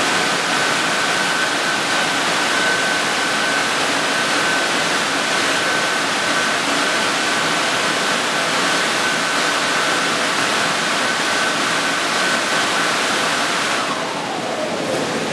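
Sino Star C7 brush car wash machine running: a steady rushing noise with a high, steady whine through it. Near the end the whine slides down in pitch and the noise eases as the machine winds down.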